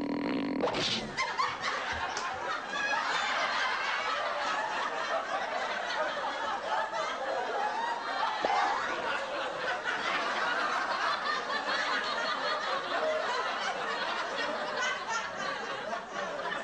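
Many people laughing continuously, a dense crowd laughter without a break.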